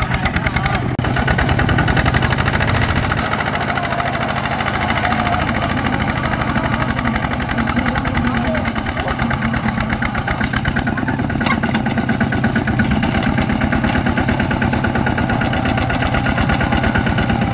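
Kubota RT120 power tiller's single-cylinder diesel engine running under load as it hauls a laden trailer through soft mud, a steady rapid beat of firing strokes.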